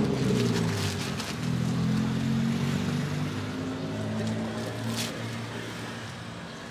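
A vehicle engine running, a low steady drone that slowly fades, with a light click about a second in and another about five seconds in.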